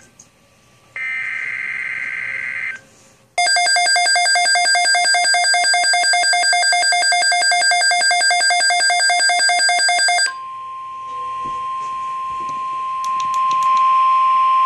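NOAA Weather Radio alert sequence: a short warbling burst of SAME header data, then the Midland HH54VP2 weather radio's own loud, rapidly pulsing alert beep for about seven seconds. About ten seconds in, the steady 1050 Hz warning alarm tone takes over, signalling an incoming weather alert, here a tornado watch.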